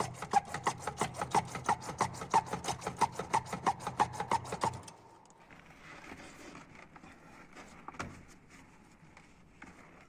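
Hand hacksaw cutting through a grey PVC pipe beside a cracked elbow, in quick, even back-and-forth strokes that stop about five seconds in. After that come quieter handling scrapes and a single knock near the end.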